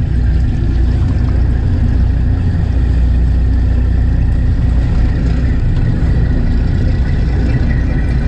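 A fishing boat's engine running steadily: a loud, even, low drone with no change in pitch.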